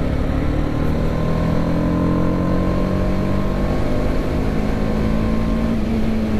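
TVS Apache RR310's 312 cc single-cylinder engine pulling under acceleration in urban mode, its power limited to 26 PS, from about 60 to 95 km/h. Its pitch climbs slowly over the rush of wind noise.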